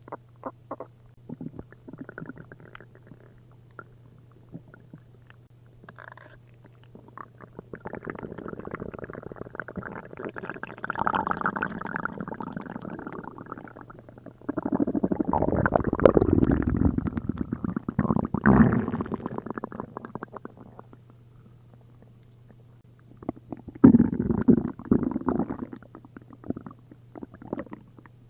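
Upset stomach and intestines gurgling and rumbling, with liquid bubbling through the gut: the belly reacting to a liter each of milk and prune juice. Faint, scattered gurgles give way to a long, loud bubbling spell from about a third of the way in, then quieter again, with one more loud burst near the end.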